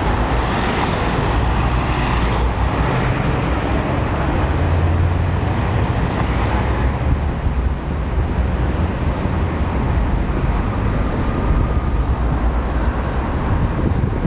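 Road traffic at a busy junction: a steady mix of engines and tyres with a heavy low rumble. It is somewhat fuller for the first several seconds as vehicles pass close by.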